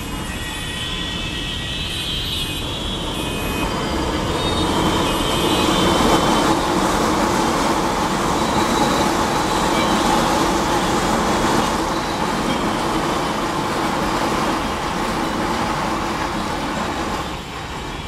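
Delhi Metro train running past on an elevated viaduct. It grows louder over the first few seconds, stays loud through the middle as the train goes by, then eases off and drops away near the end.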